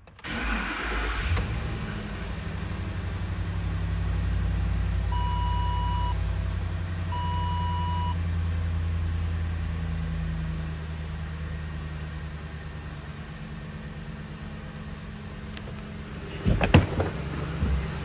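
A 2011 Ford Expedition's 5.4-litre V8 starts and runs at idle. The idle is higher at first and settles lower about ten seconds in. Two short electronic beeps sound about two seconds apart, and a few sharp knocks come near the end.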